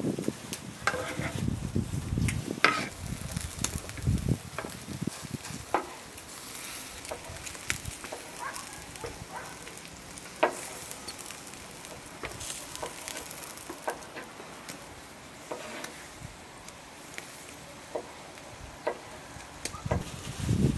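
Skewered whole quail sizzling over glowing wood charcoal, with a steady hiss and scattered sharp pops and crackles. In the first few seconds, a knife scraping diced tomato across a wooden cutting board, with a few knocks.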